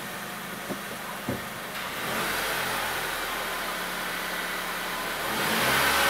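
2004 Honda Civic's 1.7-litre four-cylinder engine running at idle, then picking up speed: it gets louder about two seconds in and again near the end, rising from about 780 to about 1200 rpm. Two light clicks are heard about a second in.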